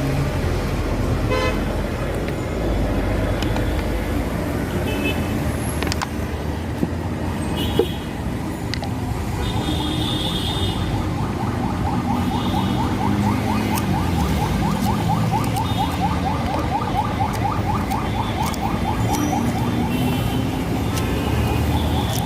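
Street traffic running steadily, with short horn toots now and then.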